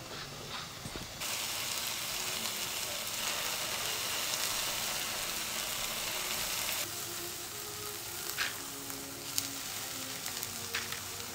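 A pepper mill grinding briefly at the start, then slices of tofu sizzling as they pan-fry in a frying pan. A few light clicks of chopsticks come in the second half.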